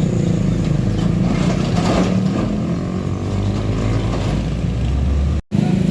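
Heavy truck engine running as the vehicle passes on the road, with a deep rumble that grows louder about four seconds in. The sound drops out abruptly for a moment near the end, then resumes.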